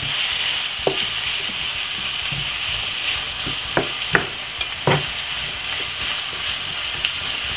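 Callaloo and mixed vegetables sizzling steadily in olive oil in a frying pan. A wooden spoon stirs them, giving a few light knocks and scrapes against the pan.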